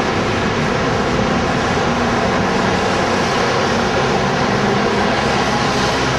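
Steady rushing noise of a rainy city street: rain and passing traffic blended into one even roar.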